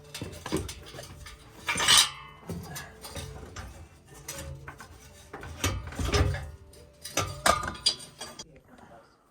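Metal tools and motorcycle parts clinking and clanking in irregular knocks as the bike is taken apart, with louder metallic clanks about two seconds in and again near seven and a half seconds.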